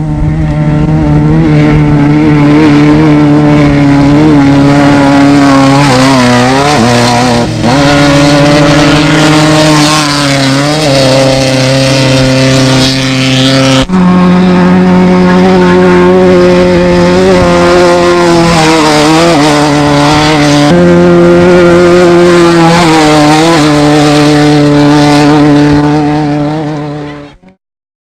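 Desert race vehicle engines at high, fairly steady revs, dipping briefly and picking back up several times. The pitch jumps abruptly twice, and the sound cuts off sharply near the end.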